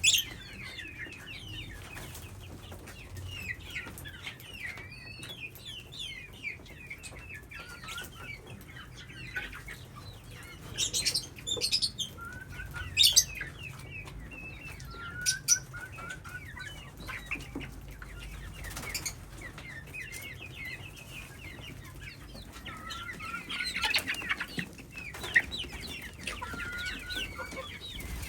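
A flock of parrots chattering, with many quick, repeated short chirps, a few louder sharp calls, and wings flapping.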